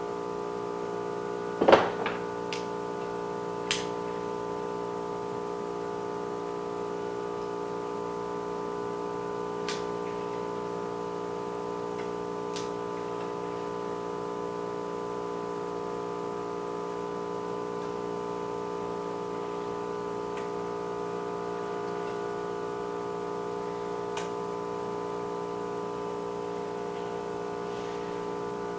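Steady electrical hum from the hot-plate repair machine, with a few sharp clicks of tools against the phone screen as the frame is worked off. The loudest click comes about two seconds in.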